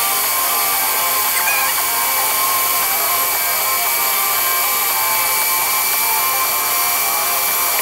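Electric stand mixer running steadily as it beats frosting in a stainless steel bowl, its motor giving a constant high whine.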